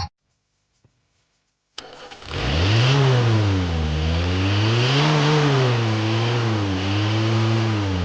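Toy tractor's electronic engine sound effect: a click, then an engine starting and running, its pitch rising and falling as it revs.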